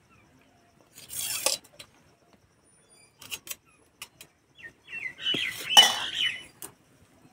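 Steel spoon scraping and clinking against a steel plate as pulao is pushed off onto a banana leaf: a scrape about a second in, a few light clicks, then a louder bout of scraping with short high squeaks and one sharp clink.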